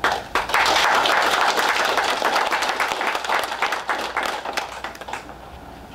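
A small audience applauding. The clapping starts abruptly, then thins out and dies away after about five seconds.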